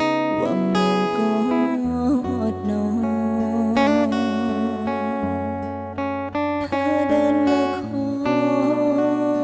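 Instrumental break of a pop song: guitar-led band music over a steady bass line, with held, wavering melody notes.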